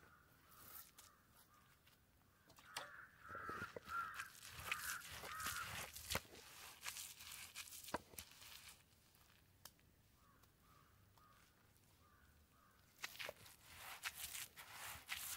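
Faint crows cawing in repeated bouts, with scattered sharp clicks and knocks from work close by.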